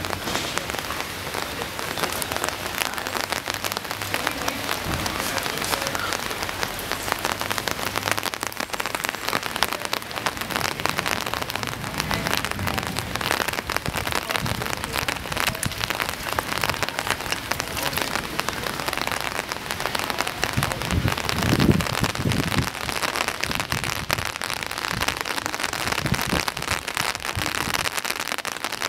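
Rain falling steadily on a flooded street, a dense crackle of drops striking standing water. About three quarters of the way through, a brief low rumble rises under it.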